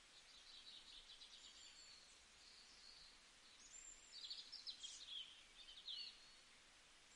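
Faint birds chirping and twittering in the background: short high trills, with a quick run of chirps about four to six seconds in.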